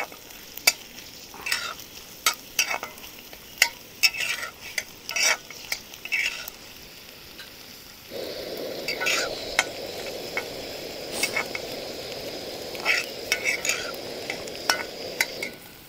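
Onion and green chillies sizzling as they are sautéed in hot oil in a kadhai, with a spatula scraping and knocking against the pan as they are stirred. About halfway through a steadier, louder hiss sets in and stops shortly before the end.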